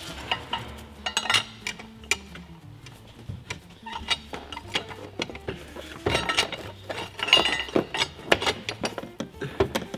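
Repeated metallic clinks and clicks of a wrench or bar working on the crankshaft bolt of an Audi RS6 engine, trying to turn it over by hand; the engine is very heavy to turn, which the owners put down to a piston seizing after running without oil.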